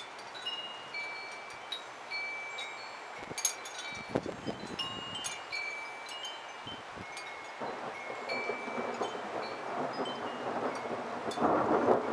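Wind chimes ringing irregularly, short bright tones at several pitches struck by storm wind, with a rushing wind noise that grows louder over the last few seconds.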